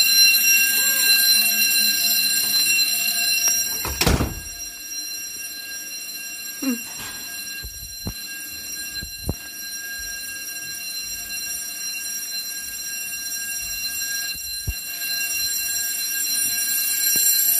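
Fire alarm sounding continuously, a steady high-pitched tone. A heavy thud about four seconds in, after which the alarm is quieter; a few sharp clicks follow, and the alarm grows louder again near the end.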